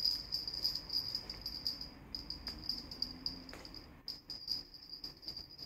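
Two small jingle bells on a cat-toy rope jingling on and off as the toy is jerked about for a playing kitten, a continuous high shimmering ring with short breaks about two and four seconds in.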